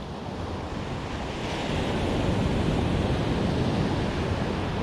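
Ocean surf washing onto the beach in a steady rush that swells slightly midway, with wind buffeting the microphone.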